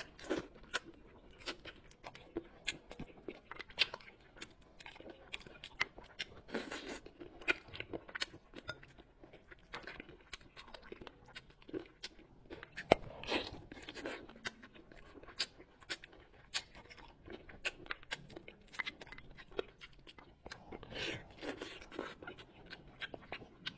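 Close-miked eating sounds of soy-braised bullfrog: biting meat off the frog legs and wet chewing and smacking, in many short sharp clicks with a few longer noisy stretches.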